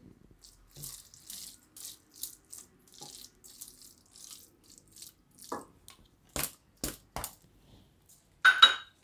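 Spatula stirring and scraping paneer bhurji around a kadai in quick, soft strokes, followed by a few sharp clicks of the spatula against the pan, the loudest a short ringing clink near the end.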